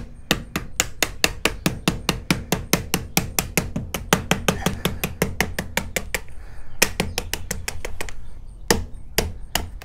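A mallet tapping the Screen Tight snap-on cap down onto its base track to seat it over the screen and spline. It goes in a quick, even run of about four knocks a second, then after a pause a few single, spaced knocks.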